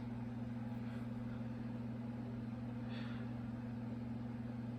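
Steady low background hum of a motor or appliance, with a faint brief rustle about three seconds in.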